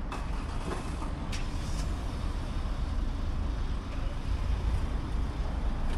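Automatic rollover car wash gantry running over a car: a steady mechanical rumble and spray noise, with a few short sharp hisses in the first two seconds.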